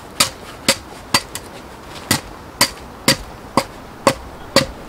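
Short-handled axe chopping into the foot of an upright log: about ten sharp blows, roughly two a second, with a short pause about a second and a half in.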